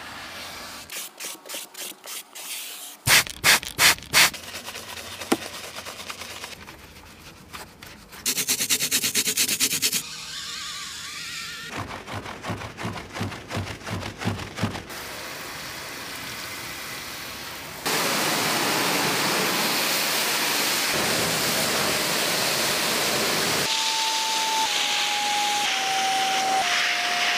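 Car-detailing scrubbing: brushes working over seat upholstery and a foamed radiator grille in quick rhythmic strokes, a few of them loud. From about two-thirds of the way in comes the steady hissing noise of a carpet extractor wand on a foamed floor mat, and near the end a few held tones step down in pitch over it.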